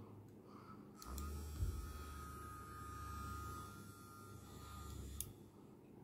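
Small battery-powered handheld vibrating massager switched on with a click about a second in. It gives a steady low buzz with a thin whine for about four seconds, then clicks off.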